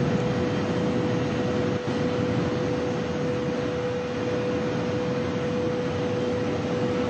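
TGV V150 high-speed train running flat out at about 553 km/h: a steady rushing noise with a constant mid-pitched whine held throughout.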